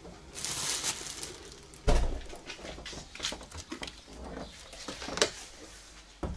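Steel-faced entrance door being handled: a heavy thud about two seconds in, then scattered clicks and knocks from the handle and latch.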